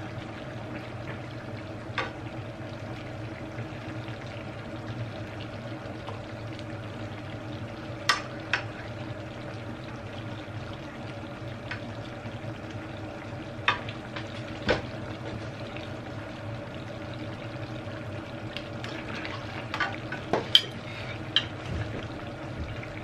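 Coconut-milk seafood stew simmering in a pan on a tabletop cooker, a steady sizzle, with sharp clinks of a metal spoon against the pan and plate scattered through it and clustered near the end.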